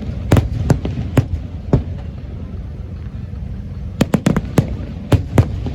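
Aerial firework shells bursting in sharp bangs over a low rumble: a few spaced bangs in the first two seconds, a short lull, then a rapid cluster of bangs from about four seconds in.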